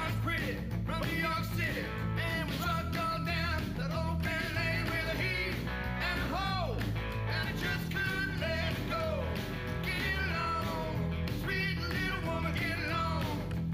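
A rock and roll band plays with a man singing lead over electric guitar, bass and drums, at an even, driving pulse.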